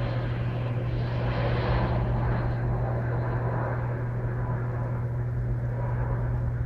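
Electrolux Turbo Capacidade LTP15 top-load washing machine running in its drain stage: a steady low hum with a rush of water over it, the hissy upper part of the water sound thinning about two and a half seconds in.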